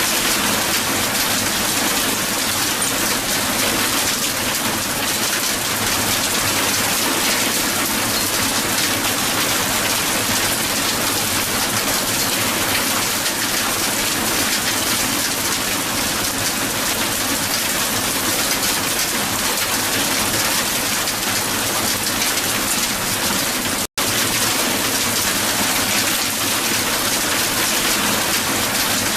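Strong hail falling on a hard surface, a dense, steady patter of ice pellets striking. It cuts out for an instant about 24 seconds in.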